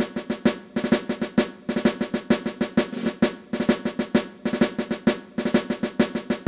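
Intro music led by fast, rhythmic snare drumming over a steady sustained chord, stopping shortly after the end.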